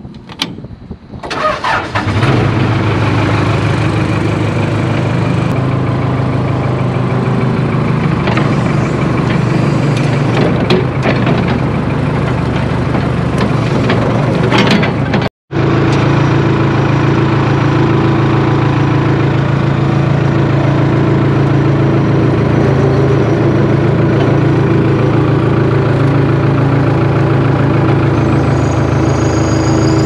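Case 580K backhoe's diesel engine cranking briefly, catching after about two seconds and running steadily. There is a brief dropout about halfway.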